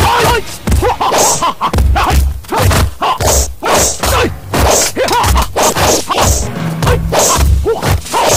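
Martial-arts fight sound effects: a quick run of punch and kick impacts, whacks and thuds about two a second, with swishing whooshes of swung fists and staff, over background music.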